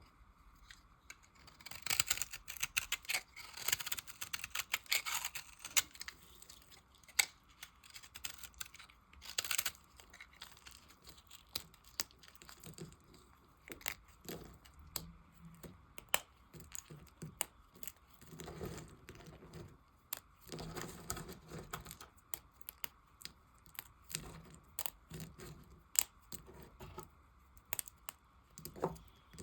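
Knife blade cutting and shaving soap scraps: crackly scraping and crunching with many short sharp clicks, densest between about two and six seconds in.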